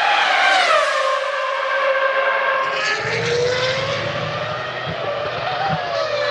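A 2001 Formula One car's high-revving V10 engine, its pitch dropping about a second in, then slowly rising and falling again near the end.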